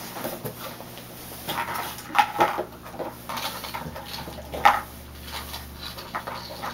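Plastic toy train track pieces clicking and clattering as they are handled and fitted together, with a few short high-pitched squeaks; one brief falling squeak a little past the middle is the loudest sound.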